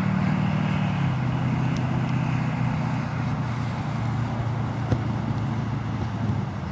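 Steady low hum of a running motor vehicle engine, stepping slightly lower in pitch about a second in. One sharp thump of a soccer ball being kicked about five seconds in.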